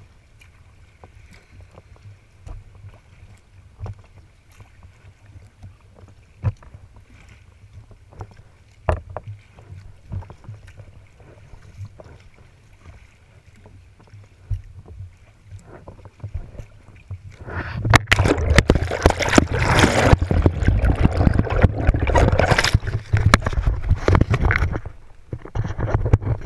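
Water lapping and gurgling along a moving kayak's hull, with wind rumbling on the camera microphone and scattered light knocks. About two-thirds of the way in, a much louder rushing noise full of knocks and clicks starts up, lasts about seven seconds, then drops away.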